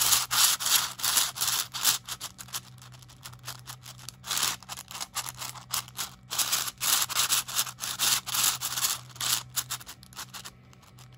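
A 3D-printed 9x9 puzzle cube turned by hand: quick runs of scraping, clacking turns of its plastic layers, easing off for a moment about three seconds in and stopping shortly before the end.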